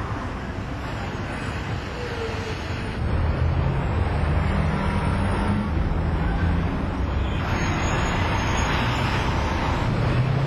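A motor vehicle engine running with road noise, a steady low hum that gets louder about three seconds in.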